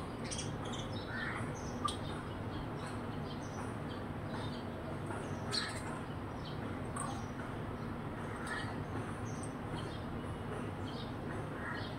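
House sparrows chirping, with short chirps scattered through, over a steady low hum. Two sharp clicks come about two seconds and five and a half seconds in.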